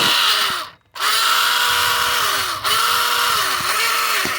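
Small RC speedboat's electric motor spinning at full throttle out of the water, a high whine. It cuts out briefly about a second in, then returns with its pitch dipping and recovering several times.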